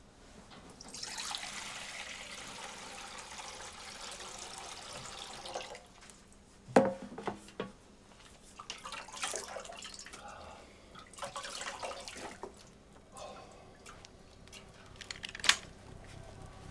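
Water poured into a basin, then splashed about in it by hands in several separate washes. A sharp knock about seven seconds in is the loudest sound, and another sharp click comes near the end.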